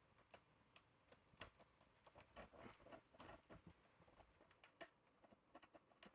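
Faint, irregular light clicks and rustles of wires and small plastic parts being handled while wiring up an exit sign.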